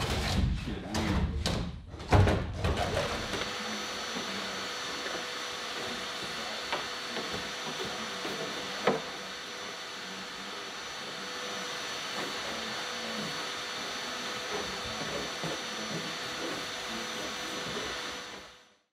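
A few knocks as a large panel is handled. Then a shop vacuum runs steadily, cleaning up dust and sanding mess in a fibreglass engine bay, and fades out near the end.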